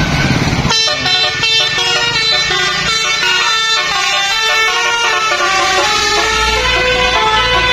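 A bus's multi-trumpet "telolet basuri" air horn playing a melody in stepping chord-like notes, starting just under a second in. A low engine rumble grows under it near the end.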